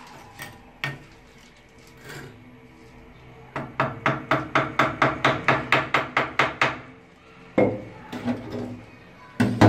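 Granite countertop slab being tapped down into its mortar bed to level it: a quick run of about a dozen taps at roughly four a second, then two heavier knocks near the end.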